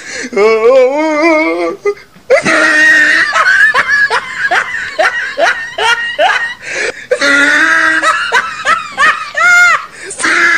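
People laughing hard and at length: long wavering peals and quick repeated bursts of laughter, with a high squeal of laughter about nine and a half seconds in.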